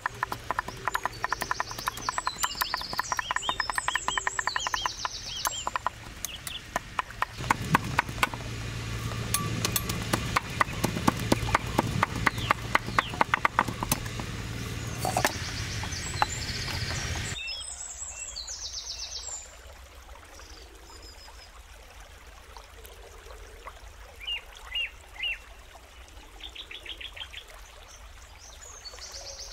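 Rapid, steady knocking, several strokes a second, over birds chirping. It gets louder partway through and stops abruptly, leaving a quieter stretch of scattered bird chirps.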